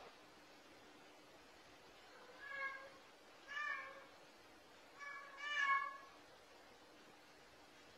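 Domestic cat meowing quietly three times, about a second apart, the last meow the longest.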